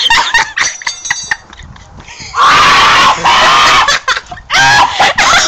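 A person coughing, spluttering and gagging on a mouthful of dry ground cinnamon, in loud harsh fits. A long rasping burst comes about two and a half seconds in.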